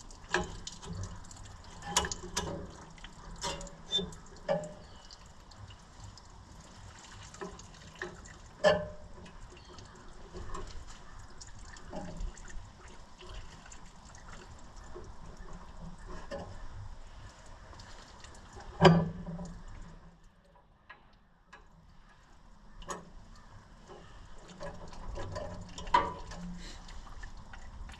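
Wrenches and loose metal parts clinking and knocking on an Oliver 77 tractor engine as it is being unbolted, in scattered, irregular strikes. The loudest knock comes about two-thirds of the way in.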